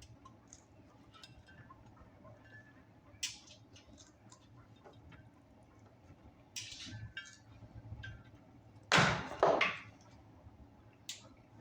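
Heavy copper battery cable being cut with diagonal cutters: scattered sharp snips and clicks as the strands part, the two loudest about nine seconds in.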